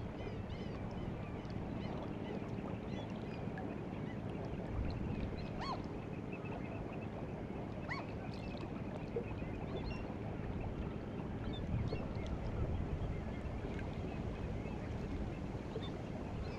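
Seawater of the White Sea washing and lapping along the shore at the incoming tide, a steady low wash, with scattered short bird calls over it.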